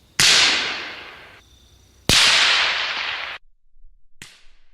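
AK-105 rifle firing 5.45×39mm rounds: two loud shots about two seconds apart, each with a long echoing tail, then a shorter, quieter crack near the end.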